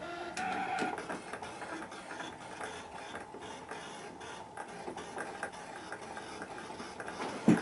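Brother ScanNCut cutting machine at work, its motors whirring as they drive the blade carriage and mat back and forth to cut out text. There is a brief whine early on and a single loud thump near the end.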